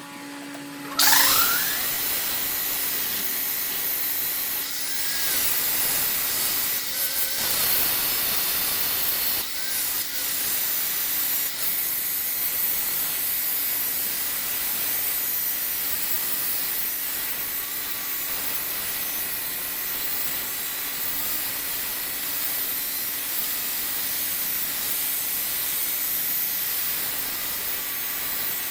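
Wood being worked on a running wood lathe: a steady rasping hiss of the spinning wood against the tool, starting about a second in with a brief rising whine.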